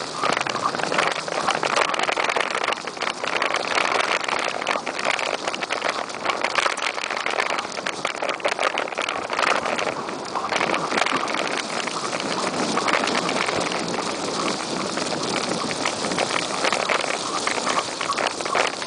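Bicycle riding fast over a dirt track strewn with dry leaves: a steady rush of tyre noise full of small crackles and rattles.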